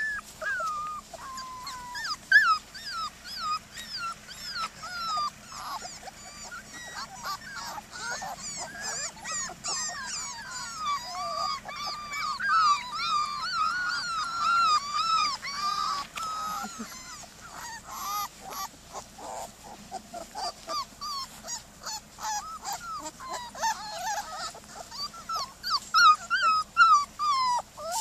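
A litter of Border Collie puppies whining and whimpering: many short, overlapping cries sliding up and down in pitch, with a few louder yips near the end.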